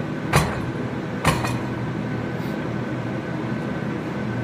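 Two sharp hammer strikes on the steel being forged, about a second apart, over a steady machine hum.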